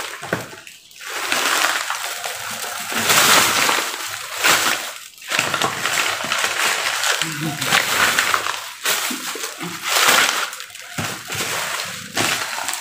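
Scrap sticker-backing paper and bubble wrap rustling and crinkling as a hand rummages through a cardboard box of packing filler. It comes in uneven stretches, with short pauses about a second in and about five seconds in.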